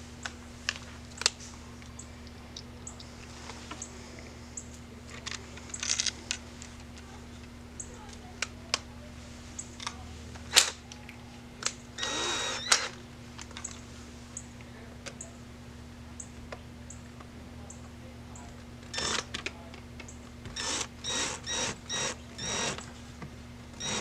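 Cordless drill-driver run in short bursts driving screws into a door frame: one burst about halfway through and a quick series of short bursts near the end. In between, scattered clicks and knocks of tools and parts being handled.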